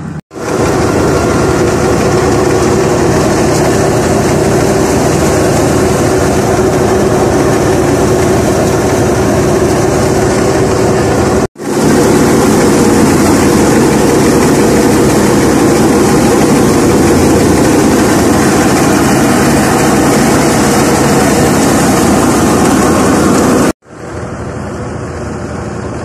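Belt-driven wheat thresher running at full work: a loud, steady mechanical din with a low hum underneath. It breaks off for a moment about halfway and drops away near the end.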